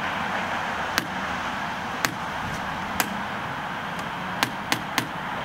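Steady hum of highway traffic, with six sharp clicks: three about a second apart, then three in quicker succession near the end.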